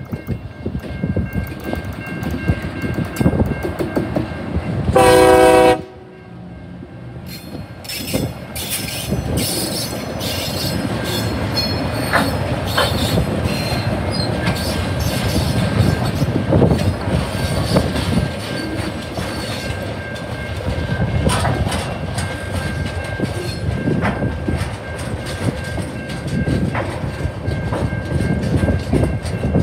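TasRail TR-class diesel-electric locomotives, TR10 leading TR09, sound one loud horn blast of about a second about five seconds in, then run past with heavy engine rumble. Loaded container wagons follow, their wheels clattering rhythmically over the rail joints.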